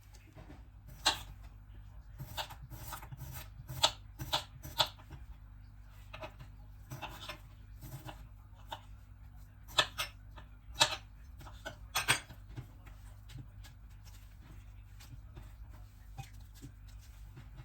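Irregular sharp clicks and taps, bunched about a second in, around four to five seconds in and around ten to twelve seconds in, over a low steady hum.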